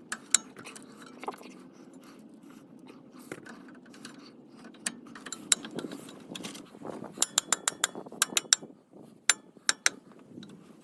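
Metal hand tools and brake parts clinking and scraping during brake work: scattered sharp metallic clinks, with a quick run of them about two thirds of the way in, over a steady low hum.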